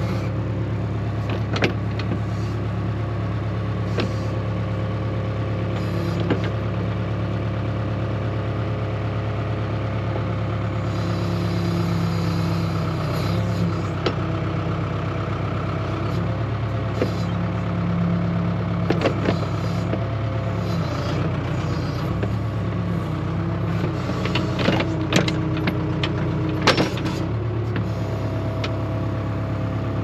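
Backhoe loader's diesel engine running steadily under load while the backhoe digs, with a whine that rises and falls as the hydraulics work the boom and bucket. Several sharp clanks from the bucket and linkage are scattered through it.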